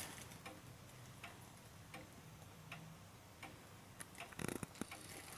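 Pendulum movement of a two-weight Vienna regulator wall clock (Gustav Becker) ticking steadily, about four ticks every three seconds. A brief bout of louder rubbing and knocks comes near the end.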